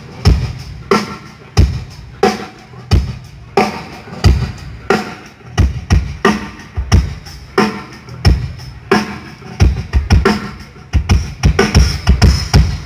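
Drum kit being played through a PA during a band's sound check: a steady beat of strong hits, about one and a half a second, with a quicker run of hits, a fill, near the end.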